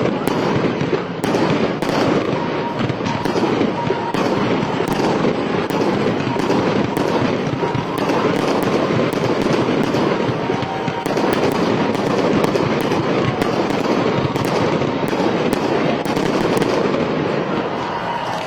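Aerial fireworks going off in a rapid, unbroken barrage: a dense run of many bangs and crackles, steady and loud throughout.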